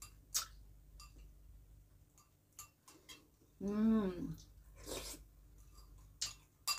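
A person eating bua loy, a sweet soup of rice-flour balls, from a glass bowl: a spoon clicking against the glass, a few short slurps and mouth sounds, and a hummed "mmm" of enjoyment a little past halfway. A sharp spoon-on-glass click comes near the end.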